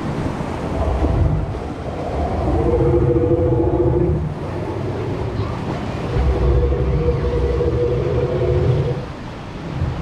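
Water churning around a river rapids raft with wind on the microphone, overlaid by a dinosaur sound effect from the ride's speakers: long, held low calls, one about two and a half seconds in and another from about six seconds in.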